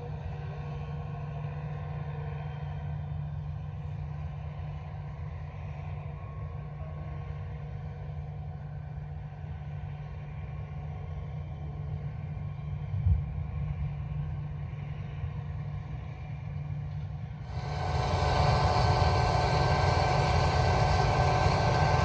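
Distant combine harvester and tractor running steadily as a low rumble while the combine unloads soybeans into a tractor-pulled grain cart, with one brief thump past the middle. Near the end it changes abruptly to a closer, louder Massey Ferguson combine cutting soybeans, its engine and threshing drone carrying several steady tones.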